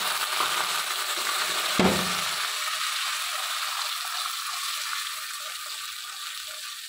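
Tomato and shallot paste sizzling in hot coconut oil while a spatula stirs and scrapes it around the pan, the sizzle easing off toward the end. About two seconds in comes a single dull thud, which the cook puts down to an oil container placed badly beside the pan.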